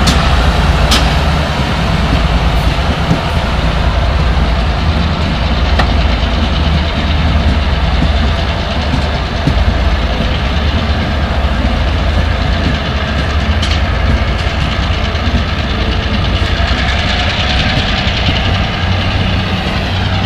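Passenger train rolling slowly past, a steady low rumble with a few sharp clicks from the wheels, most of them near the start.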